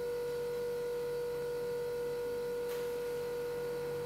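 A steady, unchanging electrical whine, one tone with fainter overtones, over low room noise, with a faint brief rustle near the end.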